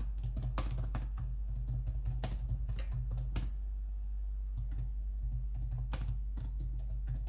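Typing on a computer keyboard: a run of irregular keystroke clicks, with a pause of about a second midway, over a steady low hum.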